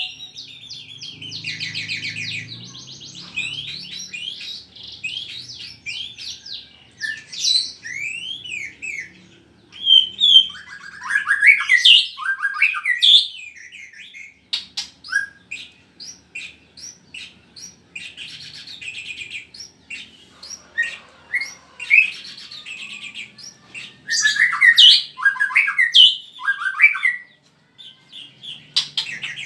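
A kept songbird singing in long, varied runs of rapid chirps, trills and short falling whistled notes, with its loudest bursts about ten seconds in and again a little before the end.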